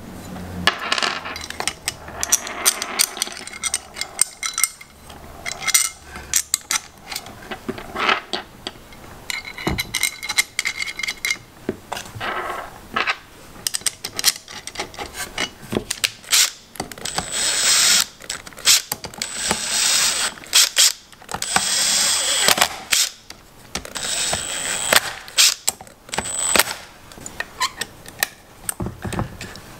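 Clicks and knocks of small metal parts and cap screws being fitted onto an engine, with a cordless impact driver (rattle gun) running in three or four short bursts about halfway through to run the screws up.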